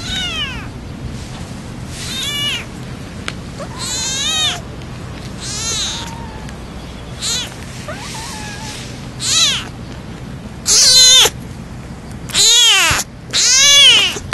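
A very young kitten mewing again and again: about nine short, high-pitched calls, each rising and falling in pitch. The calls grow louder toward the end, the last three the loudest.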